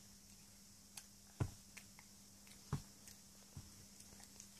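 Quiet room tone with a faint steady hum and a few soft knocks, about four, the clearest roughly one and a half and two and three-quarter seconds in.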